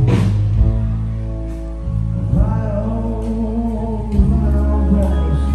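Background music: a song with a singer holding long wavering notes over a deep bass.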